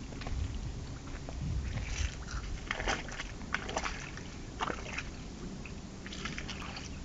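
Rubber boots squelching and sloshing through wet mud and shallow puddle water, in a string of irregular steps that bunch together in the middle, over a steady low rumble.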